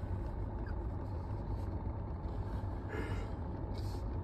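Steady low rumble of car engine and road noise heard from inside the cabin of a moving car.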